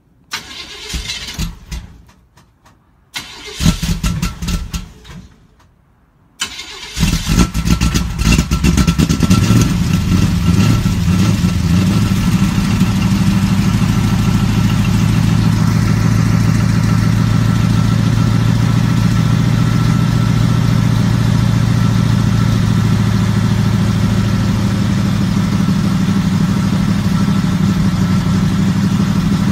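1970 Chevrolet Camaro engine cold-started: two short cranking tries don't keep it running. On the third it fires, revs unevenly for a few seconds, then settles into a steady idle heard from the exhaust.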